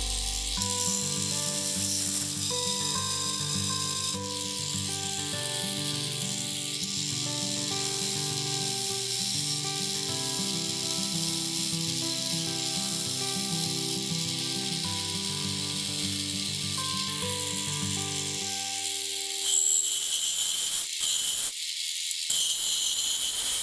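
Steady high hiss of a turning tool cutting the spinning crepe myrtle goblet on a wood lathe, under background music. The music stops about three quarters of the way through, leaving the cutting hiss alone, which breaks off briefly a couple of times as the tool lifts.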